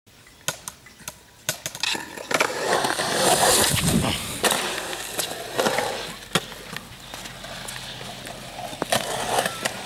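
Skateboard rolling on a concrete skatepark: a rough rolling rumble from the wheels, loudest around three to four seconds in, broken by sharp wooden clacks of the board. A quick run of clicks comes in the first second and a half.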